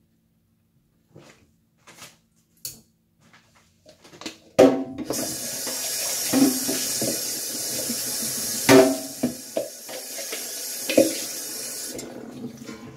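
Juice being poured into a plastic pitcher: a steady splashing stream begins suddenly about four and a half seconds in and stops about a second before the end, with a few knocks of the containers. Light handling clicks come before it.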